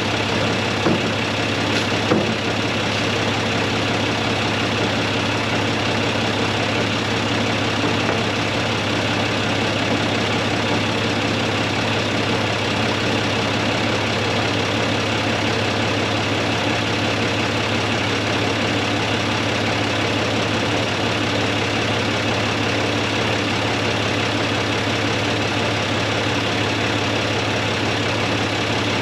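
John Deere 2155 tractor's three-cylinder diesel engine idling steadily, with two short knocks in the first couple of seconds.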